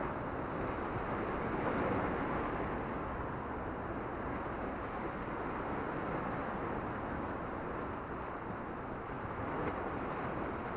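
Steady rushing noise of sea water washing against the rocks, mixed with wind on the action camera's microphone.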